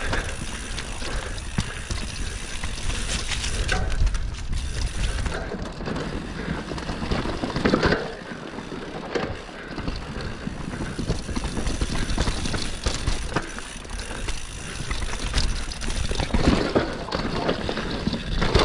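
Mountain bike riding down a rough dirt trail: tyres on the ground and the bike's chain and frame rattling over bumps, with wind buffeting the camera microphone. It grows louder in rough patches about four and eight seconds in and again near the end.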